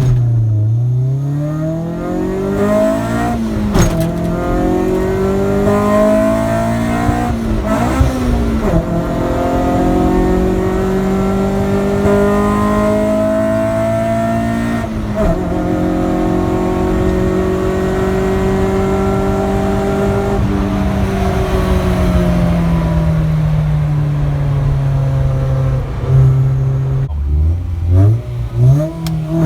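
Honda B16B four-cylinder engine of an EK9 Civic Type R accelerating through the gears: the engine note climbs and drops sharply at shifts about 4, 8 and 15 seconds in, then holds a steady pull. Toward the end the note falls as the car slows, with quick throttle blips near the end.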